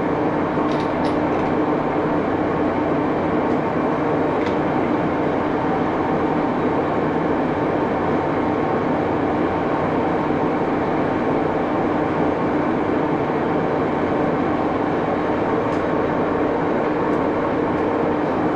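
83-year-old Baby Axelson geared-head engine lathe running steadily under power, a constant mechanical noise with a few faint held tones from its drive.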